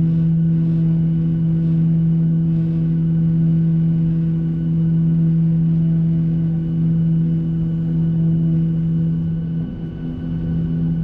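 Cabin sound of a Boeing 737-800 taxiing: its CFM56-7B engines running at idle, a steady low hum with a faint pulsing in it, easing slightly near the end.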